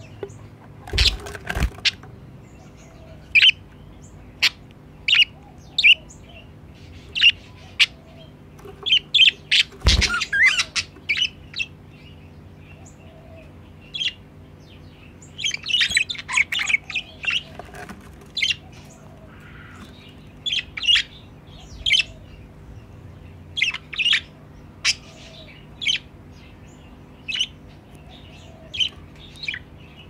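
Budgerigars chirping and chattering in many short, sharp calls throughout, busiest around the middle. A few loud thumps stand out, about a second in and again about ten seconds in, over a faint steady hum.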